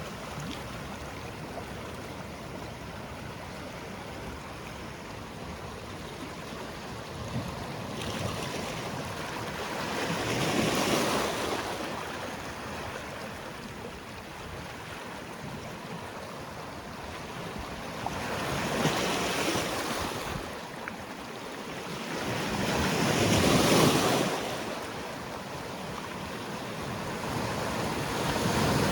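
Sea waves breaking and washing on the shore in a steady wash. Three surges swell up and fall back, the loudest about four-fifths of the way through, and another builds at the end.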